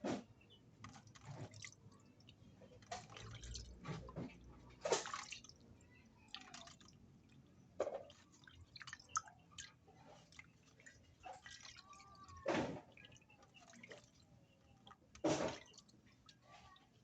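Raw chicken meat being washed by hand in water: irregular splashes and sloshes a second to a few seconds apart, with drips falling back into the water between them.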